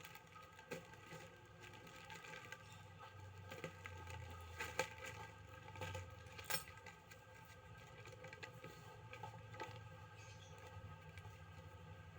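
Faint handling noises from unpacking a parcel: a few sharp clicks and light rustles over a low steady hum.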